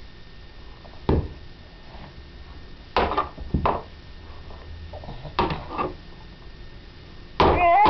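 Toy hammer knocking on a hammer-and-ball pounding toy: about five sharp knocks, the later ones in pairs, then a louder clatter near the end.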